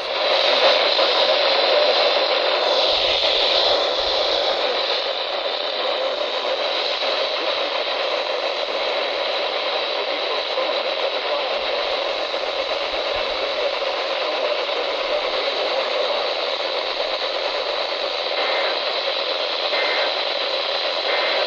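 Radio static: a steady hiss from a weather-radio receiver with no station audio getting through. It cuts off suddenly at the end.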